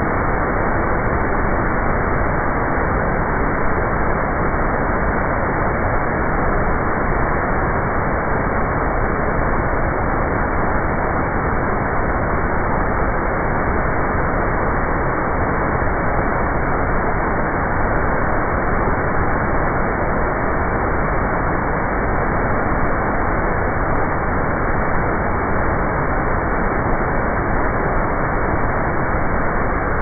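Iguazu Falls heard close up: a huge volume of water pouring over the cliffs and crashing into the river below, a loud, steady rush that never lets up.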